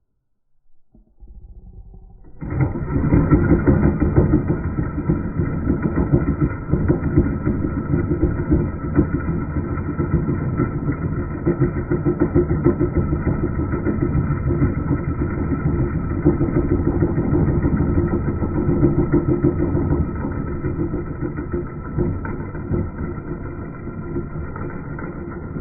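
A motor starts abruptly about two and a half seconds in and then runs steadily with a fast pulsing beat, easing a little near the end.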